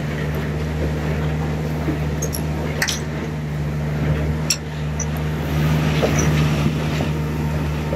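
Outboard motor of a small open boat running at a steady speed, a constant low hum with water and hull noise over it, and a few light clicks partway through.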